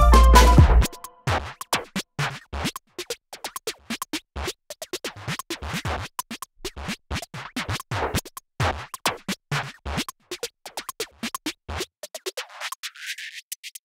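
Electronic dance music. The heavy bass beat cuts out about a second in and gives way to a long break of sparse, stuttering scratch-like hits and clipped drum-machine sounds. Near the end the lower sounds drop away.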